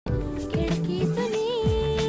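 Background music in Indian film-song style: held melodic notes with a steady beat.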